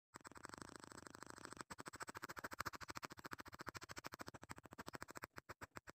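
Faint, rapid stylus-scratching strokes on a drawing tablet, about ten even strokes a second. There is a brief break after the first couple of seconds and a few short gaps near the end.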